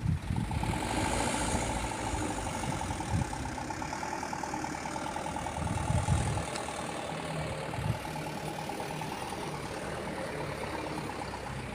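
An engine idling steadily, with a few low thumps, one near the start and others about 3, 6 and 8 seconds in.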